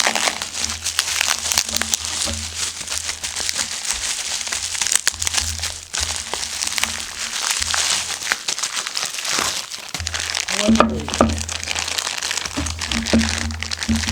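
Packaging being unwrapped by hand: a dense, irregular crinkling and crackling of wrapping, with sharper cracks now and then. Quiet background music runs underneath.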